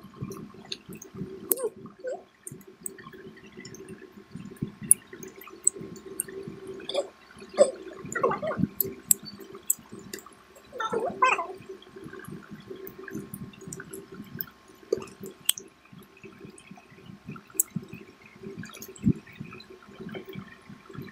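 Chewing and wet mouth noises of people eating fried chicken cutlets and fish fingers by hand, with many small scattered clicks and crunches over a steady low hum.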